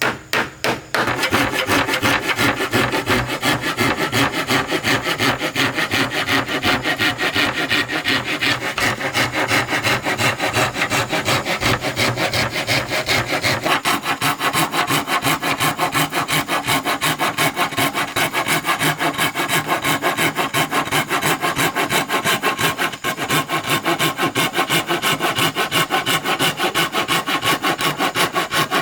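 A couple of hammer blows, then a hand saw cutting through wood with rapid, even back-and-forth strokes that keep up steadily.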